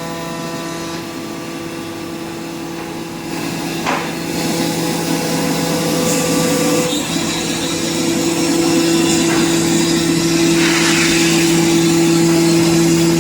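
CNC machine running: a steady motor hum with cutting noise over it, a sharp knock about four seconds in, and the sound growing louder toward the end.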